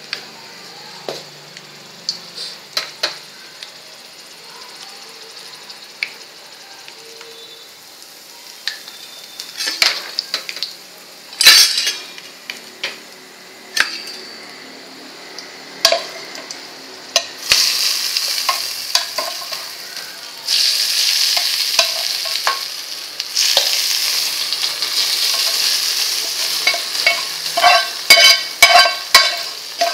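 Oil tempering with seeds and dried red chillies sizzling in a pan on a gas stove. It is quiet at first with scattered clicks and taps; a little past halfway the sizzling turns loud and steady, and near the end comes a quick run of sharp taps.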